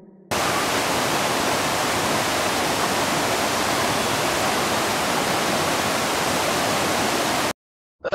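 Rushing white water of a cascading stream, a steady, even rush that cuts in abruptly just after the start and stops suddenly shortly before the end.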